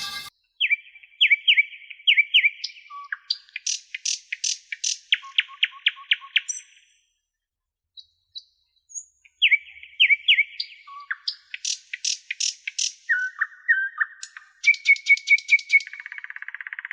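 A songbird singing phrases of quick whistled notes and trills in two bouts, with a pause of about three seconds between them; near the end a buzzy trill.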